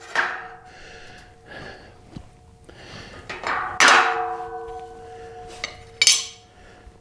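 Steel tubing of a frame jig clanking as it is handled and set against tools: a few sharp metallic knocks, the loudest about four seconds in, each leaving the tube ringing with a steady tone.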